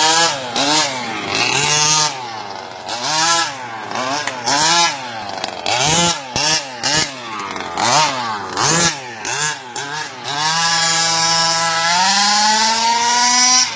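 Small two-stroke engine of a large radio-controlled buggy, revved in repeated short blips as it drives off and turns, then held at a longer run from about ten seconds in that climbs in pitch near the end.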